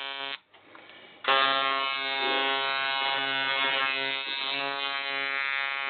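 2008 Lurch tattoo machine, set up as a fast shader and run at 4.7 volts, buzzing steadily at around 130 strokes a second. It cuts out just under half a second in and starts again about a second later.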